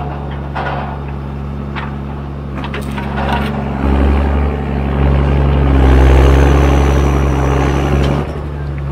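John Deere 1410D forwarder's 6.8-litre diesel engine running steadily, with a few knocks and clanks in the first three seconds. From about four seconds in it works harder, louder with a thin high whine, as under hydraulic crane load, and it drops back just after eight seconds.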